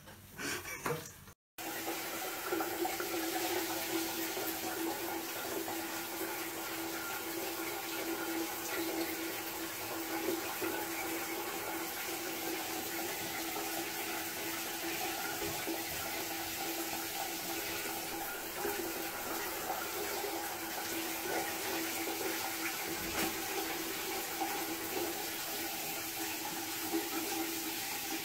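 Shower water running steadily onto a tiled floor, starting about a second and a half in.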